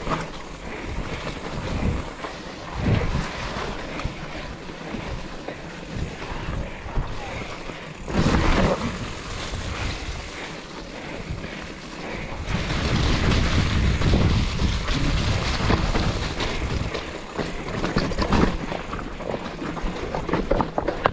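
Mountain bike riding down a dirt trail: steady rushing noise of tyres on the ground and air past the bike, with irregular rattling and clunking of the bike over bumps, loudest about eight seconds in and again for a few seconds from about halfway through.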